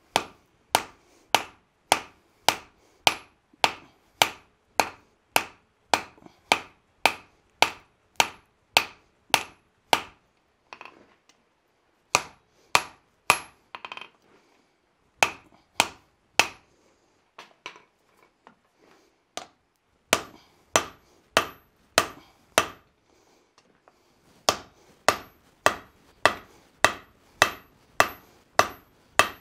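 Hand hammer forging red-hot axe steel on an anvil: steady blows about two a second in runs broken by short pauses, many of them with a faint high ring from the anvil.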